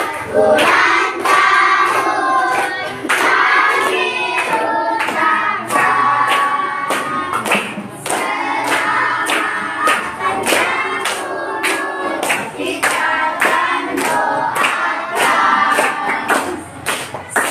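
A group singing a birthday song together, clapping their hands in a steady rhythm to the beat.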